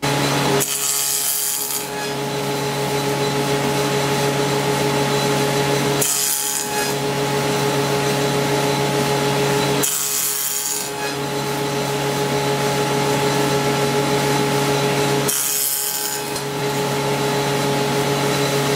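Table saw running with a steady motor hum while a wooden workpiece is pushed through the blade four times on the miter gauge, each cut a louder hiss of about a second, coming every four to five seconds.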